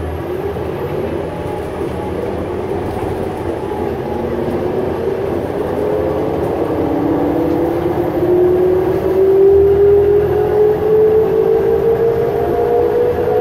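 Natural-gas New Flyer C40LF transit bus accelerating, heard from inside. Its rear axle whines, the pitch rising steadily with road speed and growing louder over the second half, above engine and road noise.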